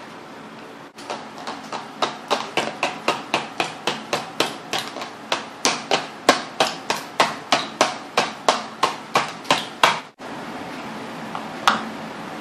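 A fast, even series of sharp hammer-like knocks, about three a second, that starts and stops abruptly and lasts about nine seconds; a single knock follows near the end.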